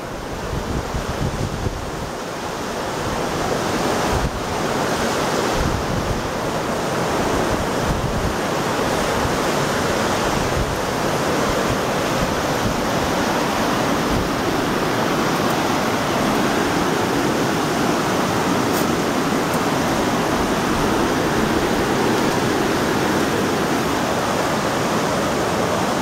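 Rushing river water running over stones below a footbridge, a steady roar that swells over the first few seconds. Low wind buffeting on the microphone in the first several seconds.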